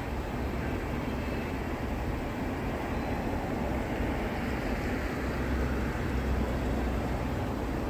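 Freight train cars rolling past at a distance, a steady rumble and hiss that swells a little past the middle.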